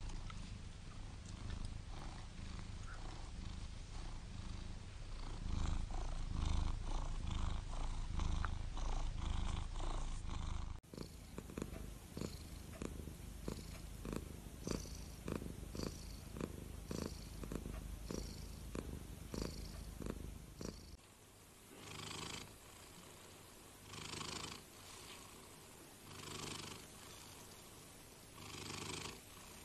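Domestic cats purring, in three stretches with abrupt changes about 11 and 21 seconds in. The last stretch is a softer, breathy purr that swells and fades about every two seconds.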